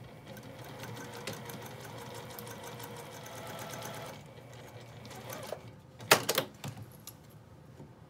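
Juki sewing machine stitching steadily for about four seconds while basting a zipper to the edge of a fabric panel, then stopping. A couple of seconds later comes a brief, louder clatter of the sewn piece being handled.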